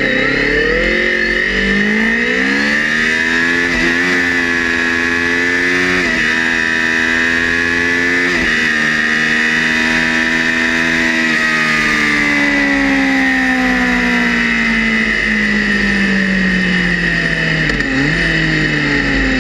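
Motorcycle engine on a full-throttle drag-strip run. The revs climb hard and snap back at three upshifts, about 4, 6 and 8.5 seconds in, then hold near the top. From about halfway the throttle is shut and the revs fall steadily as the bike slows.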